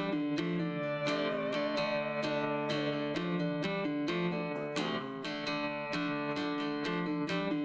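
Background music: a strummed guitar with a steady rhythm, with no vocals.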